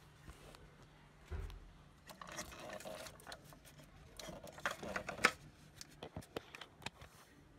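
Close handling noise: scratchy rustling and scattered sharp clicks, with a low thump about a second and a half in, over a faint steady hum.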